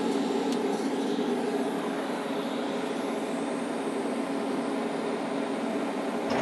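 A TIG welder running on DC electrode positive for aluminum gives a steady drone with hiss and a low hum. The drone ends in one sudden loud thump right at the end.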